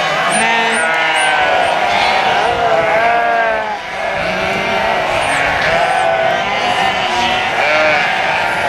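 A large flock of sheep bleating, many calls overlapping without a break, with a brief lull a little under four seconds in.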